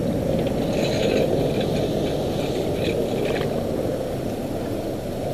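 A steady low rumble, with short bursts of splashing and light clicks from wading along a boat trailer in shallow water.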